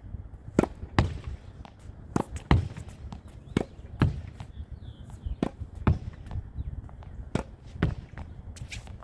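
Tennis rally against a practice wall with a lightweight low-compression ball: sharp pops of the racket hitting the ball and the ball smacking the wall and court, coming in quick pairs about every one and a half to two seconds.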